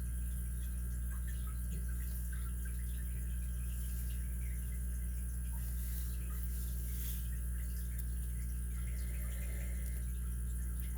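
Steady low electrical hum with a few faint, light clicks of small metal tools being handled.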